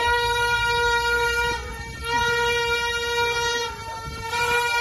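A horn sounded in three long steady blasts of about a second and a half each, one pitch, with short gaps between, over a low rumble.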